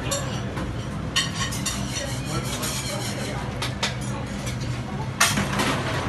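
Metal clinking and knocking as tools and parts are handled inside the top compartment of a stainless-steel commercial refrigerator, with a louder clatter about five seconds in, over a steady low hum.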